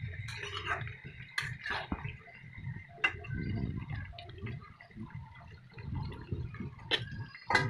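Spatula stirring and turning chunks of duck and potato in a thick masala in a metal kadai: wet squelching and scraping with scattered clicks and knocks against the pan, over a low rumble. The meat is being fried down in its spices.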